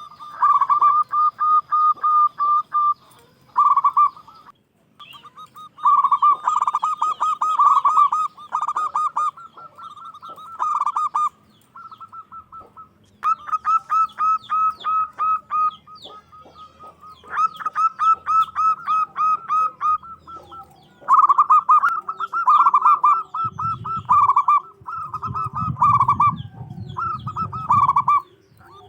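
Zebra dove (perkutut) calling loudly in a string of bursts of rapid, rolling notes, the kind of call used to draw other doves to answer.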